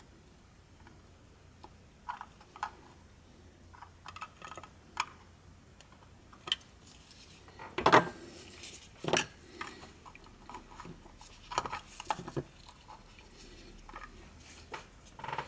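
Scattered small clicks and taps of tools and a headphone circuit board being handled on a workbench, with a louder knock about eight seconds in and another about a second later.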